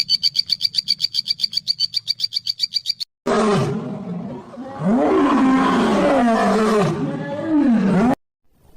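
A fast, even trill of high-pitched chirps, about ten a second, that stops after about three seconds. Then a loud, rough animal call with a wavering pitch runs for about five seconds and cuts off abruptly.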